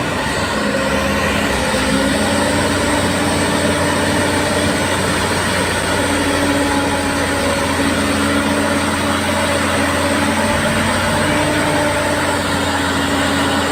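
Heavy logging truck's diesel engine running steadily, with sustained low tones that shift in pitch every few seconds.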